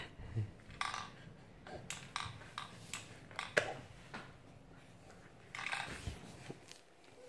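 Soft, scattered clicks and taps as a baby's hands paw at a plastic rolling rattle toy and the tatami mat.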